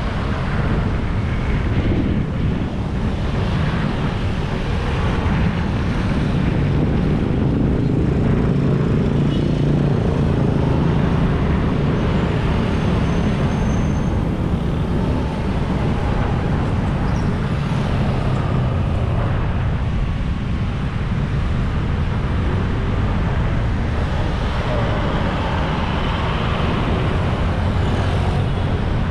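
Continuous traffic on a city road: motor scooters and cars passing one after another, their engines and tyres blending into a steady din.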